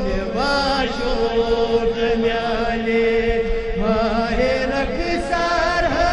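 Male voice chanting a Kashmiri naat into a microphone, in long ornamented phrases over a steady held note.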